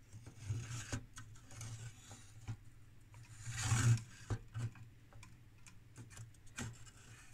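A plug-in circuit-board module being worked into a card-cage slot: scattered light clicks and ticks as the board edge and connector catch, with a louder scrape about halfway through.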